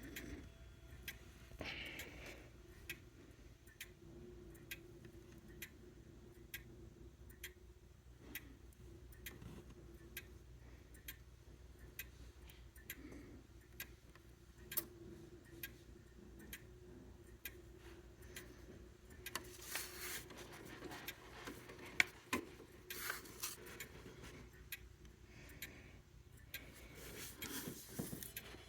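Grandfather clock ticking steadily, about one tick a second, while it waits to strike the quarter. In the last third there is faint rustling and knocking, with one sharp click about 22 seconds in.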